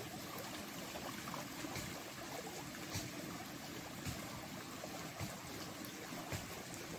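Steady rushing of a flowing stream, with a few faint taps about once a second in the second half.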